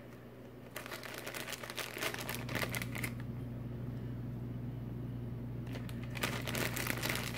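Plastic packaging crinkling in two spells of crackle, one starting a little under a second in and another near the end, while mini marshmallows are handed out for topping, over a steady low hum.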